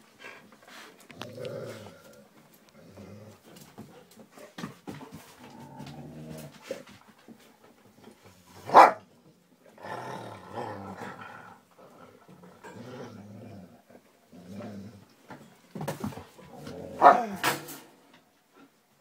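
Two dogs play-fighting and mouthing each other, growling in short repeated bouts, with two loud sharp barks, one about halfway through and one near the end.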